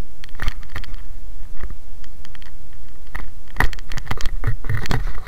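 Irregular clicks, scrapes and rustles over a steady low wind rumble: handling and wind noise on a small handheld camera's microphone as it is moved about.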